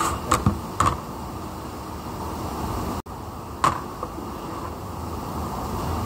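Metal gearbox parts clicking and knocking as a gear and bearing are handled and seated in the housing: a few sharp clicks in the first second and one more a little after the middle, over a steady background noise.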